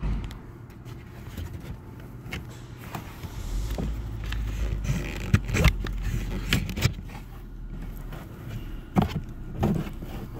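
Irregular plastic clicks, knocks and rubbing as a new pleated cabin air filter is worked by hand into its plastic housing channel in a 2016 Volvo XC90, growing busier about four seconds in.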